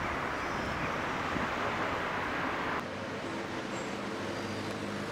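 Road traffic noise: a vehicle passing with a broad hiss. About three seconds in it cuts to a quieter, steady engine hum.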